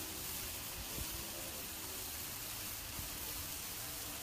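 Chicken pieces sizzling on a hot Blackstone steel flat-top griddle, a steady hiss with a faint pop about a second in and another near three seconds.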